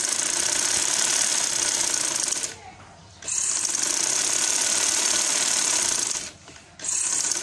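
Domestic sewing machine running fast as it stitches a seam: a dense rattle in three runs, two longer ones of about two and a half and three seconds with short stops between, then a brief run near the end.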